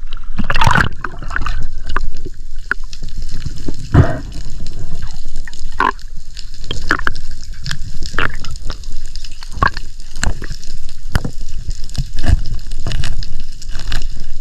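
Water sloshing and gurgling around the microphone in the sea, a steady low rumble broken by many sharp clicks and knocks.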